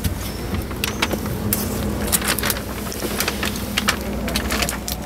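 Scattered clicks, knocks and rustles from handling and movement inside a truck cab, over a steady low hum.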